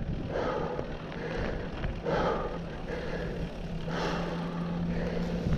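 Mountain bike rolling along a dirt singletrack: tyre noise and wind rushing on a handlebar-level action camera, pulsing roughly once a second. A low steady hum runs through the last couple of seconds.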